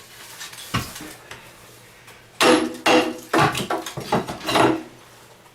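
Metallic clanking and knocking from work on a cracked plumbing waste pipe: one sharp knock about a second in, then a run of clattering hits from about two and a half to five seconds in.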